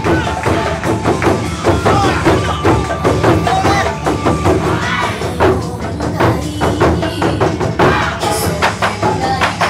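Loud show music driven by fast, dense taiko drum strikes over a pitched melody.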